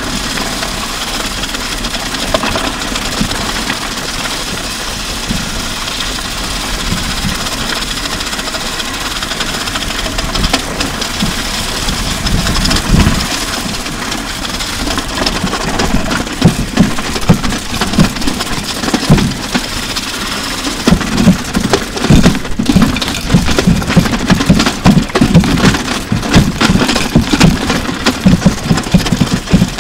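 Drum kit, bass guitar and electric guitar dragged over a wet road surface, picked up through the guitars' line signal and an overhead drum mic. A steady grinding scrape and hum runs through it. From about halfway on come frequent heavy knocks as the drums bounce and tumble.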